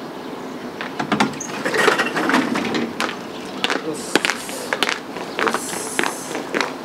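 Footsteps and shoe scuffs on concrete with scattered clicks and knocks, starting about a second in, as players walk out through a sliding glass door carrying bats.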